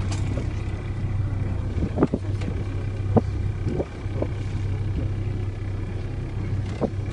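Boat engine running with a steady low drone, broken by about five short knocks.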